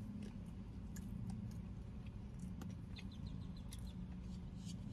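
Quiet eating and handling sounds of someone picking at seasoned chicken wings in a plastic takeout tray: scattered small clicks, smacks and a short run of tiny high ticks about three seconds in, over a steady low hum in the car cabin.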